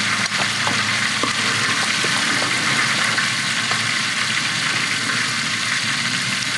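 Burger patties and tomatoes sizzling steadily in hot oil in a large shallow metal pan, with a few light clicks of a metal spatula against the pan in the first couple of seconds as patties are lifted out.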